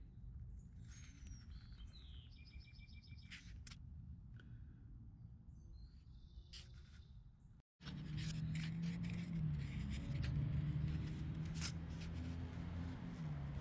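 A small homemade paint-can wood-gas stove burning wood pellets outdoors, with a low steady rumble of flame and air, and birds chirping over it in the first half. After a sudden cut a little past halfway, a louder steady low hum comes in with scattered sharp clicks.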